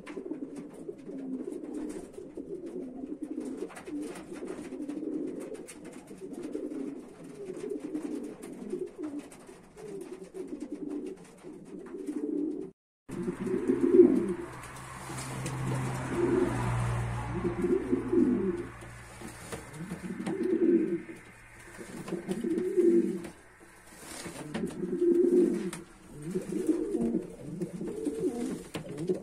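Domestic pigeons cooing. At first many coos overlap steadily from the flock. After a break about 13 seconds in, louder separate coo phrases come every two seconds or so from a pair in a nest box.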